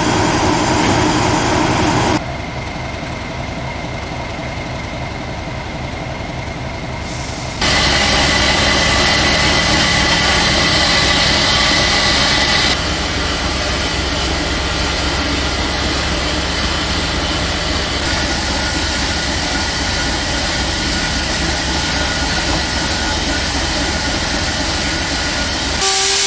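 Heritage railway train running. The sound changes abruptly several times, with a steady low hum and tones in some stretches.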